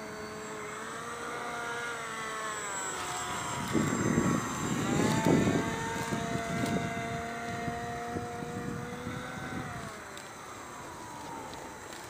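Radio-controlled model airplane's motor and propeller whining as it flies past, its pitch falling and rising as it comes and goes, with a louder rushing noise about four to five seconds in.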